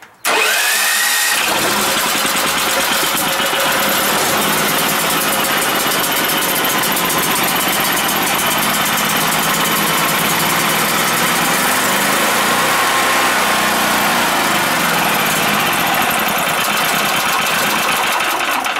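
Yamakoyo SH7000DXE generator's 13 hp YK1300 single-cylinder engine starting with the choke on, catching within about a second and running steadily on a small priming charge of gasoline poured into the carburettor. It dies away right at the end as that charge runs out.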